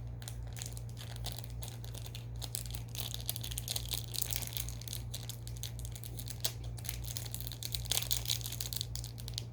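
Plastic candy wrapper crinkling as it is pulled and worked at to get it open, a steady run of small crackles, over a low steady hum.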